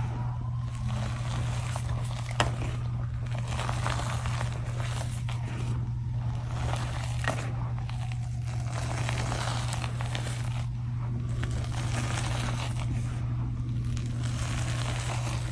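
Hands pressing, squeezing and scooping soft powdered gym chalk in a glass bowl close to the microphone: a soft, dusty crunching that swells and fades as the chalk is compressed and let go. There is one sharp click about two and a half seconds in, and a steady low hum runs underneath.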